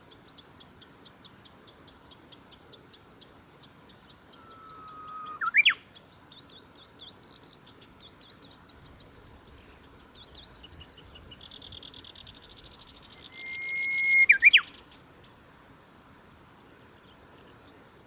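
Japanese bush warbler singing its 'hō-hokekyo' song twice, about five and fourteen seconds in. Each song is a long held whistle that swells, then breaks into a quick flourish of notes; the second is pitched higher than the first.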